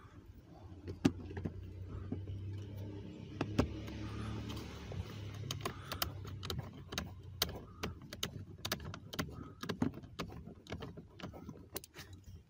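A screwdriver turning a small screw into the plastic cabin air filter cover, with many irregular clicks and knocks of metal tool on plastic. A low steady hum runs underneath during the first few seconds.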